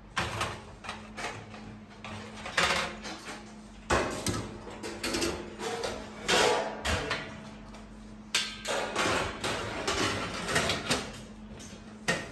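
Stainless-steel deep fryer parts being handled: wire fry baskets and steel lids set into the tanks in a series of metallic clanks and scrapes, some ringing briefly.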